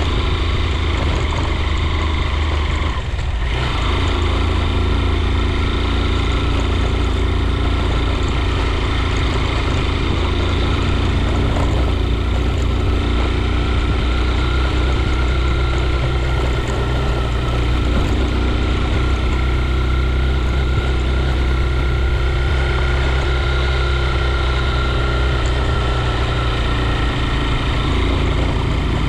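A vehicle's engine running steadily while driving, over a heavy low road rumble, briefly dropping off about three seconds in before picking up again.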